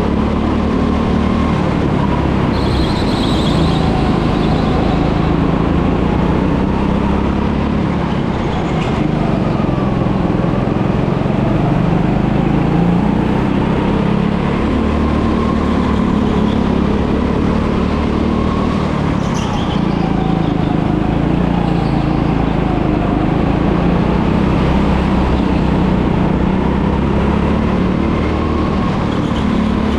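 Go-kart engine running hard, its pitch rising and falling again and again as the kart speeds up and slows.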